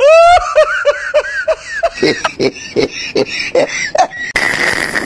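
High-pitched giggling laughter: a quick run of short squeaky notes, several a second, ending in a breathy rasp near the end.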